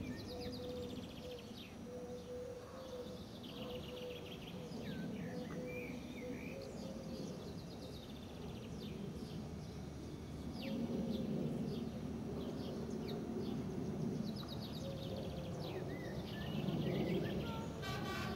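Songbirds chirping and trilling throughout, over a low rumble that grows louder from about halfway through as the weed-killing train approaches.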